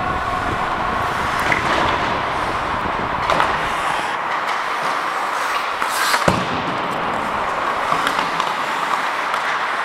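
Ice hockey play: skate blades scraping the ice, with sharp clacks of sticks and puck every second or two, the loudest about six seconds in.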